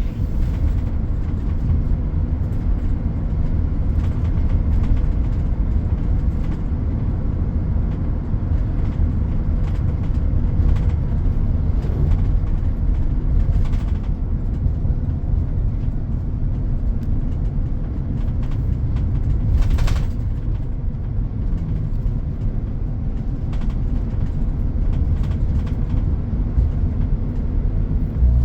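Steady low rumble of road traffic, with a couple of brief sharp knocks at about 14 and 20 seconds.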